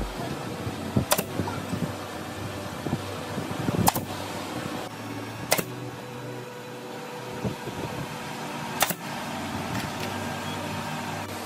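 Pneumatic nail gun firing four single shots into a wooden frame, each a sharp snap, at uneven gaps of one to three seconds. A steady mechanical hum runs underneath.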